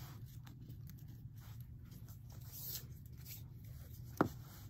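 Faint handling noise: a sterling silver chain bracelet and a paper sticky tab being laid out and straightened by hand, light rustling and scraping, with one sharp tap a little after four seconds in.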